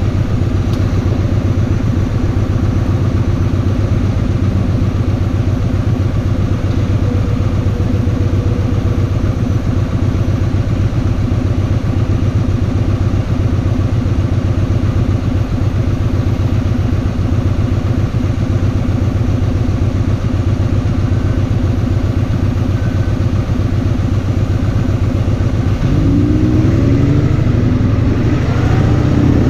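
Kawasaki VN2000 (Vulcan 2000) big V-twin motorcycle engine running steadily while riding, then rising in pitch as the bike accelerates near the end.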